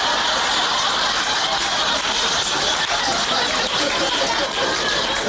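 Audience laughing loudly at a stand-up comedian's punchline, a dense crowd of laughter with no speech.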